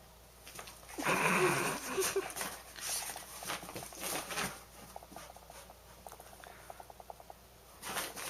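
A dog and a cat play fighting: scuffling, thumps and scrabbling paws, loudest about a second in, then a quick run of light patters near the end.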